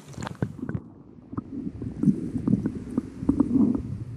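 Muffled underwater sound picked up by a submerged camera: dull rumbling and sloshing of moving water with scattered short knocks. About a second in, the open-air hiss drops away and everything turns low and muffled.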